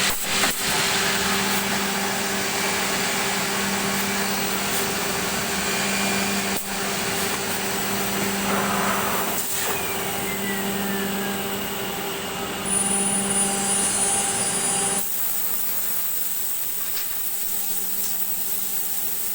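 Six-sided CNC panel drilling machine running in a workshop: a steady motor hum under a whirring, vacuum-like noise, with scattered clicks and knocks. About fifteen seconds in, the higher whirring drops away and a lower hum remains.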